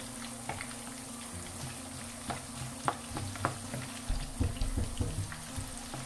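Sliced onions frying in hot oil in a pan, a steady sizzle scattered with sharp crackles and pops. About four seconds in, a wooden spatula stirs them, adding low knocks against the pan.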